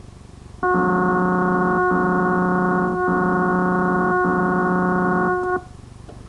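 A loud, steady electronic tone recorded at the very end of a VHS tape, played back through a CRT television's speaker. It starts about half a second in, dips briefly three times, and cuts off abruptly just before the tape's picture gives way to blue screen.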